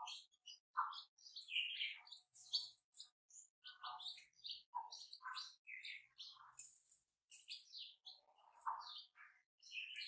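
Newborn chicks peeping over and over in short, high chirps, with lower calls mixed in among them, as they feed with the hen at a bowl of grain.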